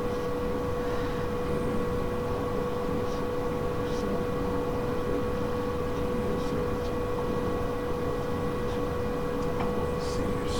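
A steady hum and hiss with a constant tone, and a few faint ticks.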